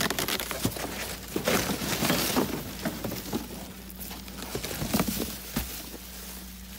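Cardboard boxes and a plastic bag being handled and shifted: irregular rustling, crinkling and scraping, loudest around two seconds in and again near five seconds, over a steady low hum.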